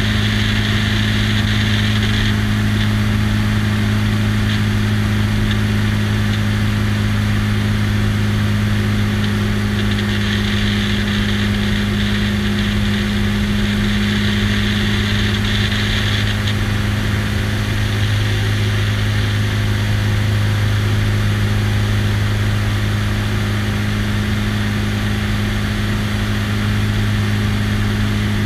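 Biplane's piston engine and propeller running steadily in level flight, a constant low drone, with a rush of air over the wing-mounted camera that swells slightly twice.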